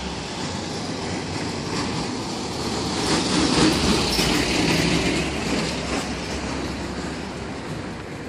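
Box truck passing close by on the street: a rumble that swells to its loudest around the middle and then fades, with a few short rattles.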